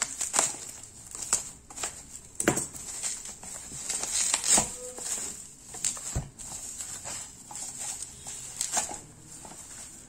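Plastic bubble wrap being pierced with a pen and pulled open by hand: irregular crinkling and crackling, with a dull knock about six seconds in.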